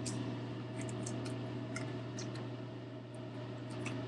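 Small plastic doll accessories and their packaging being handled, giving scattered light clicks and rustles over a steady low electrical hum.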